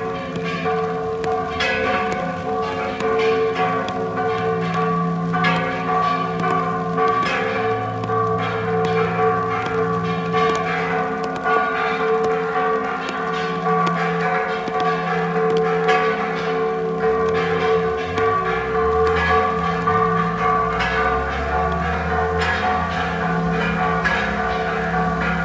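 Church bells of a Mexican parish tower ringing a festive repique, the peal that announces the patronal feast: several bells struck in quick, continuous succession, their tones ringing on and overlapping.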